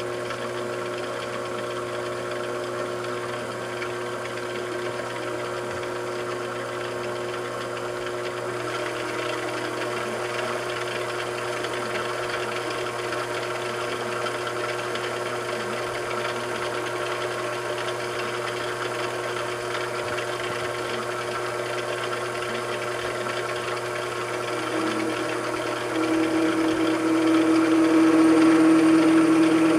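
Motor of a metalworking machine tool running steadily with a constant hum. Its tone shifts about nine seconds in, and it gets louder near the end.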